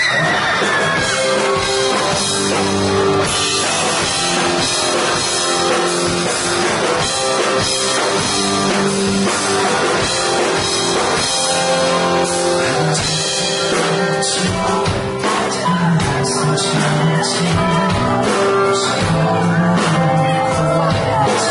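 A live rock band playing: a male singer sings over electric guitar, keyboard and a drum kit.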